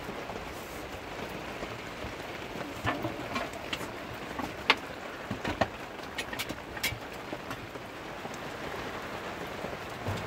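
Steady rain falling on a canvas tent, with a scatter of light knocks and clicks from things being handled in the middle few seconds.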